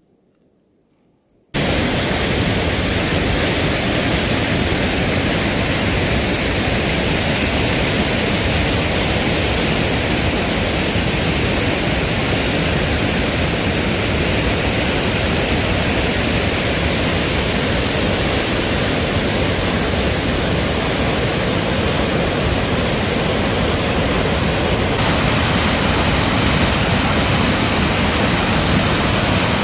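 Steady rush of the Lower Tahquamenon Falls and its rapids, cutting in suddenly after a moment of near silence. It grows a little brighter near the end.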